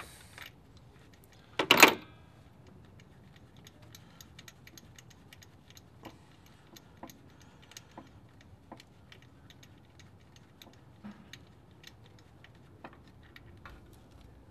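Ratchet wrench clicking in short, irregular ticks as a spark plug is unscrewed from the engine, with one loud knock about two seconds in.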